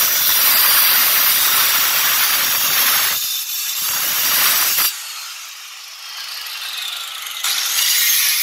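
Handheld marble cutter fitted with a vitrified-tile blade cutting through a black granite strip, with a steady high grinding whine. The sound drops about five seconds in and comes back up near the end.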